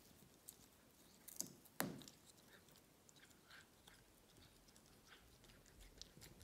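Domestic cat biting off and chewing blades of cat grass: faint, irregular crunching clicks, with a louder click about two seconds in.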